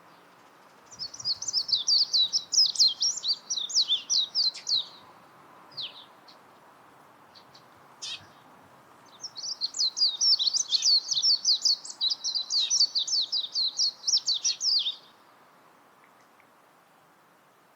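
Japanese white-eye singing: two long phrases of rapid, high twittering notes, each lasting several seconds, with a pause between them and a couple of single short notes in the gap.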